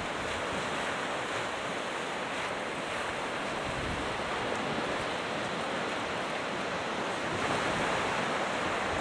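Ocean surf washing and breaking steadily on a sandy beach, with wind on the microphone, swelling slightly near the end.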